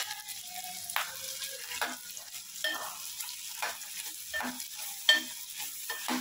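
Steel spoon stirring chopped onion, capsicum and tomato frying in oil and butter in a non-stick pot, scraping the pan about once a second over a sizzle, as ginger-garlic and chili-coriander paste is mixed in.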